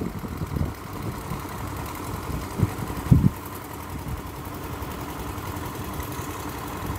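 An engine running steadily in the background: a constant hum with a faint steady tone. A few soft low thumps come through, the strongest about three seconds in.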